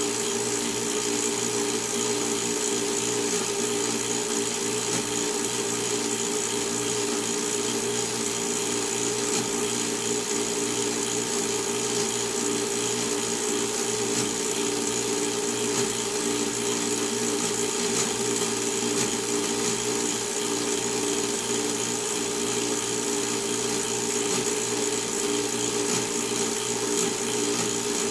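Film projector running with a steady mechanical whir that does not change.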